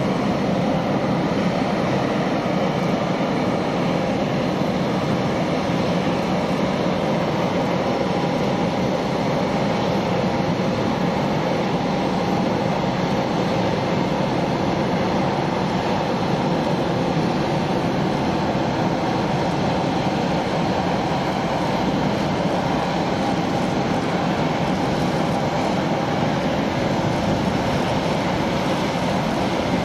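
Jet engines of an Airbus A350-900 (Rolls-Royce Trent XWB) running as the airliner rolls out along the runway after touchdown. A steady, even noise with a faint whine in it.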